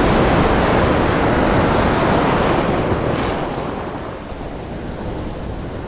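Ocean surf: a wave breaks and its white water rushes up the beach, loudest over the first three seconds, then easing as the foam spreads and washes out.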